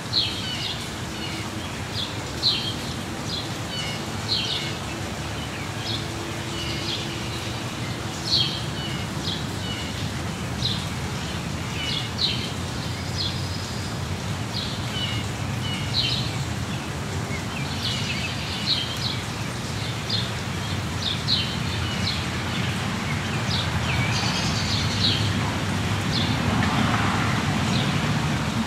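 Steady rain falling, with songbirds chirping throughout in short calls every second or two. A low rumble swells near the end.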